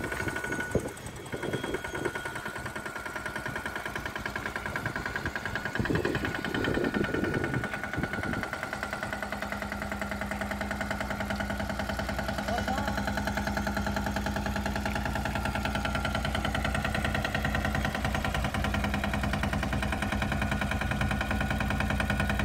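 Engine of a three-wheel sanedo mini tractor running steadily with a fast, even beat; a steady low hum joins about eight seconds in and the sound grows a little louder.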